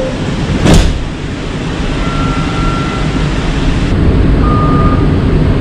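Light rail train running, heard from inside the passenger car: a steady rumble of wheels on track, with one sharp clack just under a second in.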